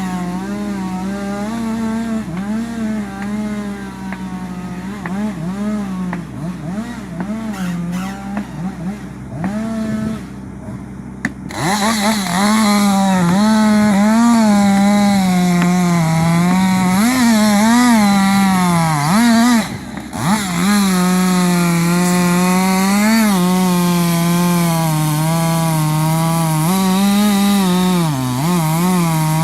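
Chainsaw running under load, cutting through a tree trunk, its engine pitch wavering as it bogs and picks up in the cut. It gets noticeably louder about eleven seconds in and drops off briefly near the twenty-second mark.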